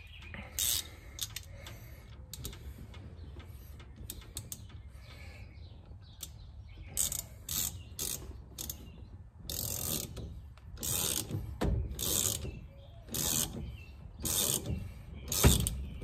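Socket ratchet clicking in repeated strokes as it turns the forcing screw of a steering wheel puller to draw a part off the steering column. The clicks are sparse at first and come in quicker strokes in the second half, with a louder knock near the end.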